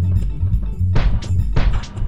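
Background music with a heavy bass line and sharp drum hits.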